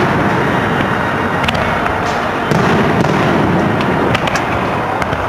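Fireworks display with aerial shells launching and bursting in quick succession. The booms blend into a continuous loud rumble, with sharp cracks several times, and it gets louder about halfway through.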